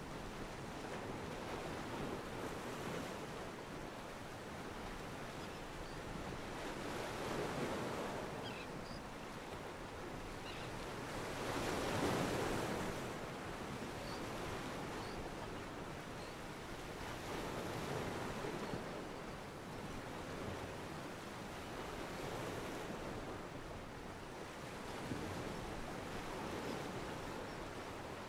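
Sea water washing against a pier, rising and falling in slow swells every four to six seconds. This is a stock ocean-pier ambience track, not the yacht's own sound.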